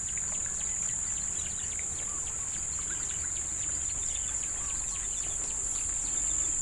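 A steady high-pitched insect chorus, with scattered faint bird chirps.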